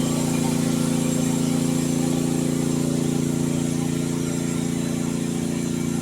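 Mini excavator's engine running steadily at a constant speed.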